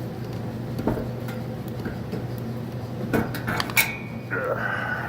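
Metal tools clinking and scraping against the mower engine's flywheel as it is pried loose. Scattered clinks give way to a quick cluster of knocks, the last and loudest a sharp metallic clank that rings on briefly.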